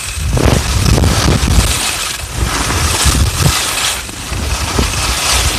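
Rushing wind buffeting the phone's microphone during a ski descent, with the hiss of skis sliding and scraping over snow swelling and fading with each turn.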